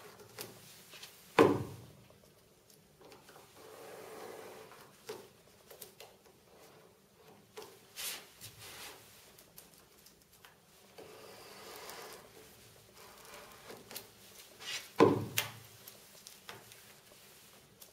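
Sharp knife trimming excess laminate and photo paper from the edges of an acrylic block: quiet scraping and rubbing, with a click about halfway through. Two sharp knocks, one about a second in and one near the end, are the loudest sounds.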